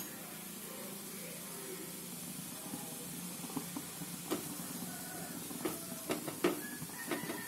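Mustard and cumin seeds sizzling quietly in hot sesame oil in a clay pot, with scattered pops and crackles from about three and a half seconds in as the seeds begin to splutter.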